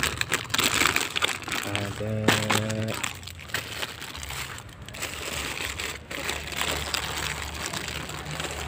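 Clear plastic toy packaging crinkling and rustling, with many small crackles, as bagged toys are brushed and handled. About two seconds in, a brief pitched hum sounds for about a second.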